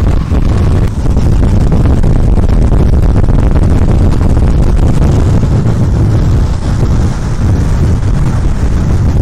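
Loud, steady roar of wind buffeting the microphone at high speed, mixed with longboard wheels rolling on asphalt during a downhill run.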